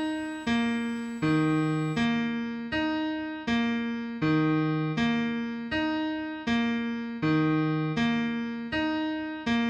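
Piano music: a sustained chord struck about every three-quarters of a second, each one fading before the next, in a slow, even pulse.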